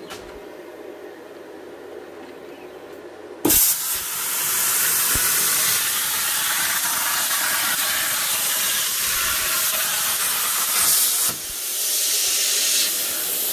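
Plasma cutter torch on a CNC table cutting eighth-inch steel plate: after a low hum, the arc fires with a sudden loud start about three and a half seconds in and runs as a steady loud hiss, dipping briefly near the end.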